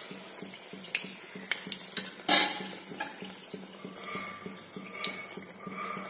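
Oil sizzling and crackling around madakku pastries deep-frying in a metal kadai, with light clinks of a metal spoon against the pan and a louder knock about two seconds in.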